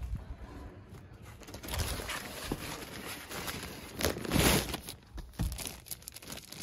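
Rustling and crinkling as packed bundles of hoodies are handled and loaded into a car, with a longer, louder rustle about four seconds in.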